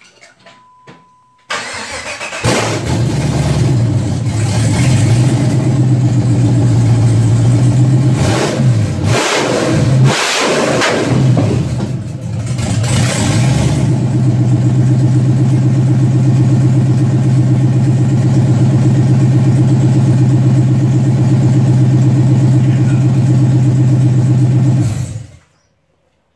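V8 engine swapped into a Jeep Wrangler JK starting for the first time: it cranks briefly and catches, is revved unevenly a few times, then idles steadily before being shut off near the end.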